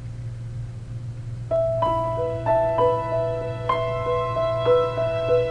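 Slow piano music begins about a second and a half in, single struck notes that ring and fade one after another. Before it there is only a steady low hum.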